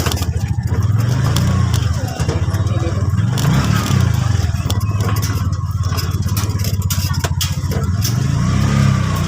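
Motorcycle engine running under way, a steady low throb whose revs rise and fall three times, about a second and a half in, near the middle and near the end.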